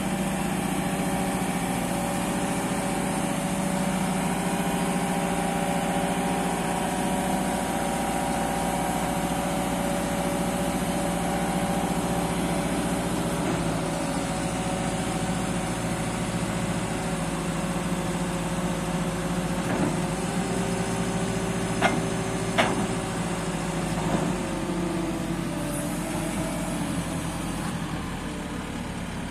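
JCB 540-170 telehandler's diesel engine running steadily while its boom is retracted and lowered. Two sharp knocks come about three quarters of the way through.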